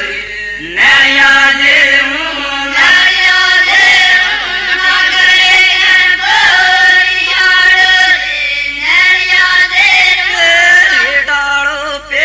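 Group of voices chanting a devotional song in unison, holding long notes that slide from one pitch to the next, with a short break just after the start.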